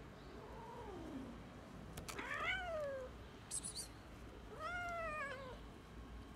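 Cat meowing three times, each call rising and then falling in pitch, the first one faint; a brief high squeak falls between the second and third meows.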